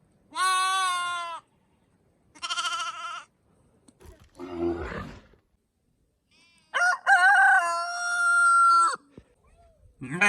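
A sheep bleating twice in short wavering calls, then a rougher, lower animal call, then a rooster crowing once for about two seconds, its pitch stepping.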